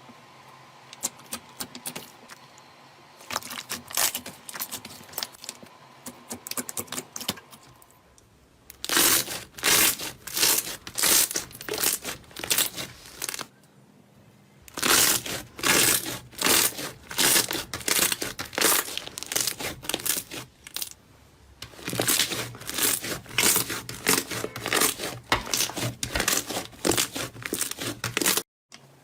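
Slime being squeezed and pressed by hand, giving dense crackling and clicking in several long bouts with brief pauses between them.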